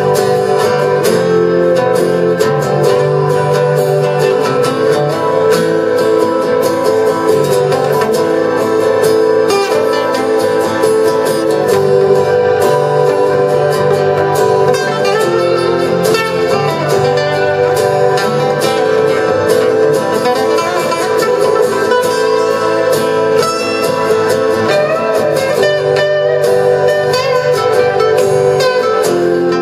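A folk-rock band playing live: two acoustic guitars strumming and picking with a small electronic keyboard holding sustained notes, steady throughout.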